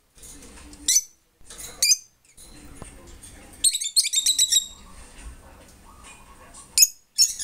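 Rosy-faced lovebirds squeaking: short, sharp, high-pitched chirps about once a second, with a quick run of rapid chirps about four seconds in.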